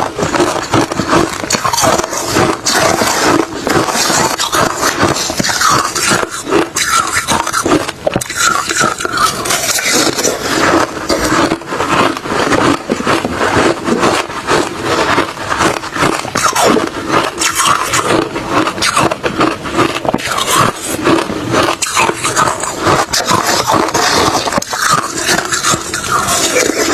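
Someone chewing refrozen crushed ice and shaved ice close to the microphone: a dense, continuous run of crunches with no pauses.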